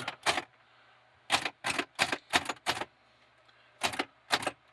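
Remington Noiseless Model 7 typewriter keys being pressed one at a time, about nine separate key strikes in small groups with short pauses between, each typebar working and retracting as it should.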